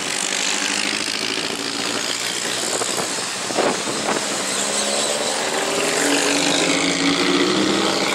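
Engines of vintage pre-war open sports cars passing one after another through a chicane, running under load and changing pitch as they slow and pick up. A short sharp sound comes a little before the middle, and near the end an engine revs up as a car accelerates away.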